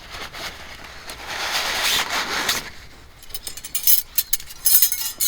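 A rustling noise that swells and fades, followed by a quick run of light metallic clinks and clatters, like small metal objects knocking together.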